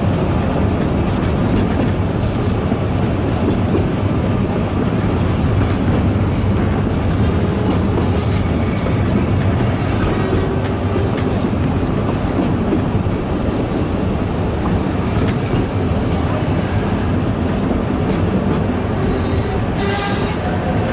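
Narrow-gauge railway carriage running along the track: a steady rumble of wheels on rail with a continual light clatter. Brief faint wheel squeals come in about halfway through and again near the end.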